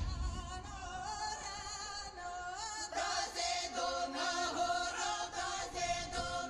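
Live band music through an outdoor PA: the heavy bass drops out at the start and several voices sing a melody together in harmony, with little backing beneath them.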